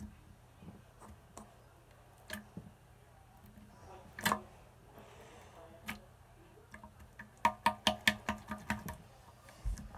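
Light clicks and taps from a clear plastic cup being handled: a few scattered clicks, a sharper one about four seconds in, then a quick run of about a dozen light ringing taps, about seven a second, near the end.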